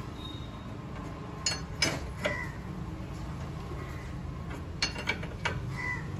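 Sharp metallic clicks and clinks in two short groups, from a box spanner turning the nut of a steering-head cone press tool as it draws the lower bearing cone into the motorcycle's head tube, over a low steady hum.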